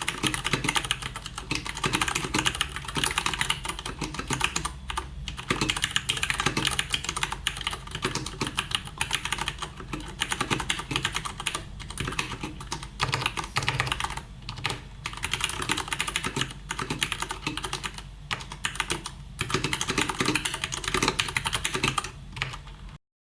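Fast continuous typing on a Leopold FC750R mechanical keyboard with Cherry MX Brown tactile, non-clicky switches: a dense patter of keystrokes with a few short pauses. It cuts off abruptly near the end.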